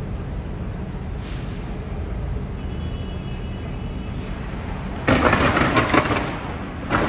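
Fireworks crackling in two sudden loud bursts, one about five seconds in and another near the end, over a steady low rumble.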